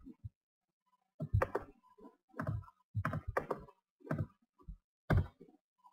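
Computer keyboard keys and mouse buttons clicking as a web address is copied, pasted into a browser and entered: about ten short, irregular taps.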